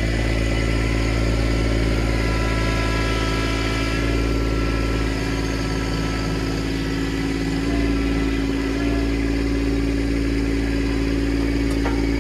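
Kubota LX2610 compact tractor's three-cylinder diesel engine idling steadily.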